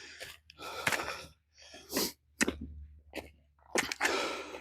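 A man breathing hard while climbing a steep hill on foot: a quick run of heavy puffing breaths, about one a second, with a few sharp clicks in between.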